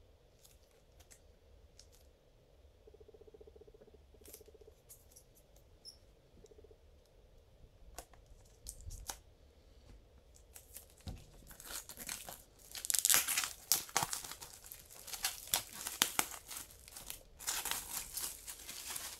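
Clear plastic shrink-wrap being torn and peeled off a SteelBook case, crinkling and crackling loudly through the second half, after a first stretch of faint handling clicks.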